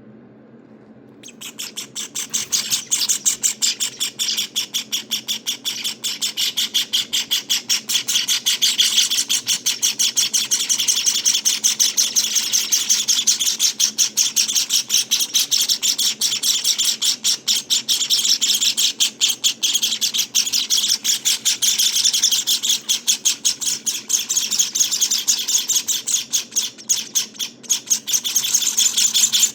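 Java sparrow nestlings calling in a continuous stream of rapid, high chirps, several a second, starting about a second in.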